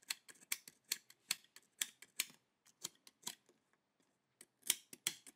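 Utility knife blade scraping and clicking in short, irregular strokes against the metal battery contacts of a flash's battery cover, scraping off dried battery-leak residue. There is a pause of about a second a little past halfway, then a quick run of strokes.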